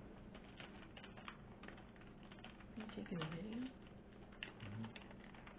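A person's low murmured 'mm' about three seconds in, falling then rising in pitch, and a shorter low 'mm' a little later, over faint scattered light clicks and rustling.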